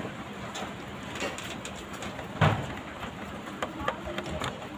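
Handling noise from a radio-cassette player's tape mechanism being gripped and lifted in its plastic cabinet: one dull knock about halfway through, then a few light clicks near the end.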